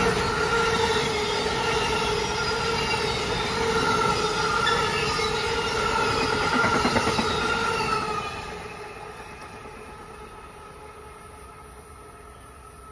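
Amtrak Amfleet passenger cars passing on electrified track, with wheels running on the rails and a steady high ringing over the rumble. About eight seconds in the noise drops sharply as the last car goes by, leaving a fainter, fading train sound.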